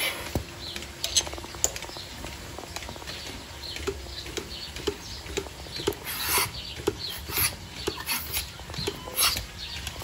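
Milking machine on a cow as its teat cups are put on: short hisses of vacuum air sucking in, over a regular pulsator tick about twice a second, with small clicks of the cups and claw being handled.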